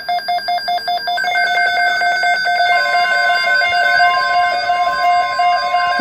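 Weather-alert radios going off for a severe thunderstorm watch. Rapid pulsed electronic beeping settles after about a second into steady alarm tones, and another long steady alert tone joins about three seconds in.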